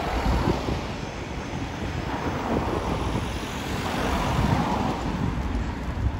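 Street traffic noise: a motor vehicle passing by, a steady rushing noise that swells in the middle and then eases.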